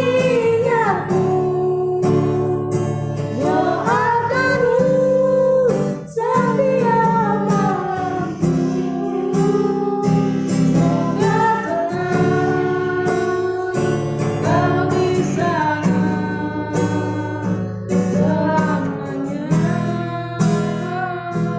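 A busker singing a slow song to his own strummed acoustic guitar, with long held, gliding notes.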